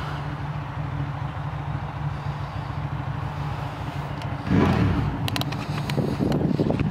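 Yamaha Wolverine RMAX2 1000's parallel-twin engine idling steadily. About four and a half seconds in, a sudden louder rush joins it, followed by a few sharp clicks.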